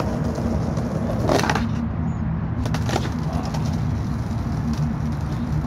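Skateboard on concrete: the wheels roll with a steady low rumble, broken by a few sharp clacks of the board, the loudest about a second and a half in and two lighter ones near three seconds.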